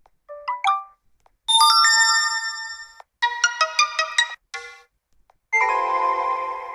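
A string of short built-in phone alert tones from a Vsmart Live smartphone, played one after another with brief gaps. First a quick rising figure of a few notes, then a bell-like chord that rings and fades, a rapid run of mallet-like notes, a short blip, and another ringing chord fading out near the end.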